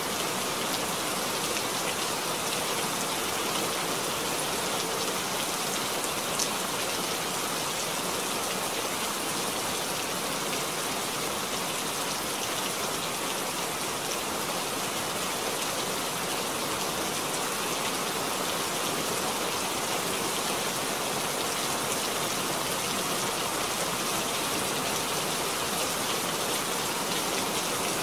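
Steady rain falling into a puddle, an even hiss that does not let up.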